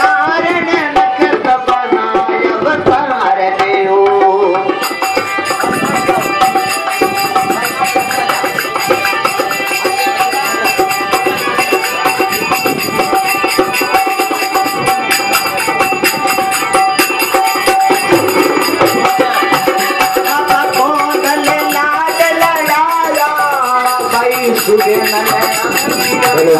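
Live Indian folk music played through a loudspeaker: dholak hand drums beating a fast, steady rhythm over a held harmonium tone, with a voice singing at times.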